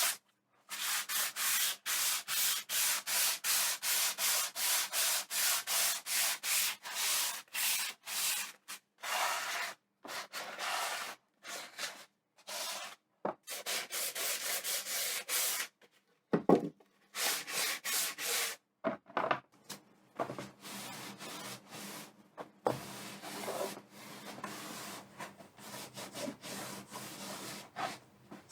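Sandpaper rubbed back and forth by hand over a wooden tray, in regular strokes about two a second, then in shorter, irregular and softer strokes after about halfway.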